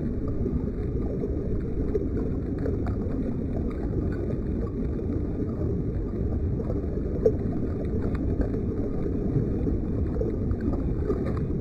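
Fast river current rushing and gurgling right at a camera sitting at the water's surface: a steady, low, muffled rush with small scattered splashes against the microphone.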